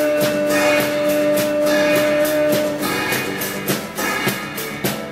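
Acoustic guitar strummed with a drum kit keeping a steady beat, the closing bars of a live song. A long held note drops out about halfway through.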